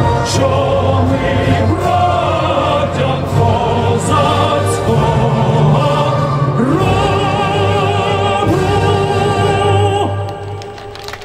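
Song playing with a choir and a voice holding long, wavering notes over a steady accompaniment, fading out about ten seconds in.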